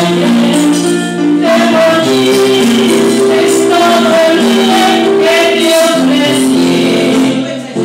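A woman singing into a handheld microphone over a backing track of held chords and light shaker-like percussion, amplified through a PA speaker.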